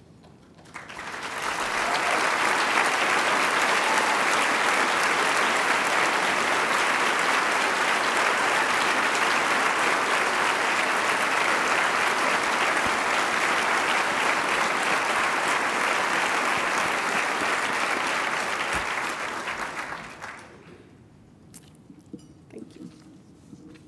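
Audience applauding in a large room. The applause swells in about a second in, holds steady, and dies away about twenty seconds in.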